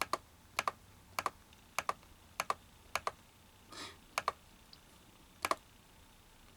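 Computer clicking: about ten paired press-and-release clicks, roughly one every half second or so, with a longer gap after about three seconds.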